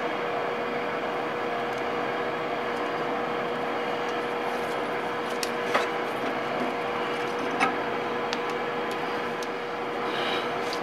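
A steady background hum with one constant tone. Two short clicks and a little rustle come from a bundle of wires and a metal conduit locknut being handled at a motor junction box.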